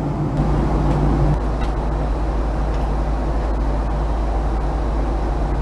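Steady cabin noise of a Boeing 767 airliner in cruise: an even rush with a low hum, and a few faint clicks.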